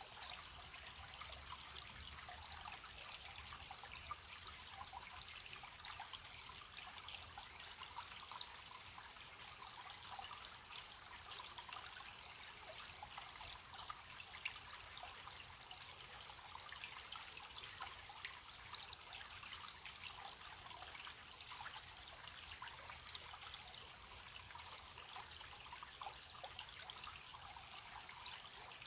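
A small stream babbling and trickling steadily, with crickets chirping in a faint, evenly pulsed high note.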